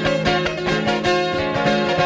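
Live band music: an instrumental passage led by guitar, with regular picked or strummed strokes and no singing. The sound is taken off a TV broadcast onto cassette tape.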